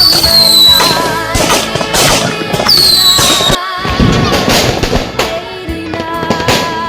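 Fireworks going off in a rapid string of loud bangs, with two high whistles falling in pitch, one at the start and one a little before the midpoint. Music with a wavering melody plays underneath.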